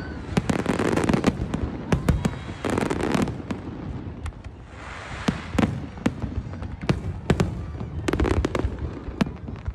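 Aerial fireworks shells bursting in a dense, irregular barrage of bangs and crackles. The barrage thins out for a moment near the middle, then picks up again.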